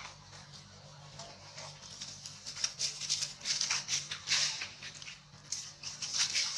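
Dry leaf litter rustling and crackling as a macaque grapples with a struggling baby macaque on the ground, in irregular bursts that get busier and louder about two seconds in.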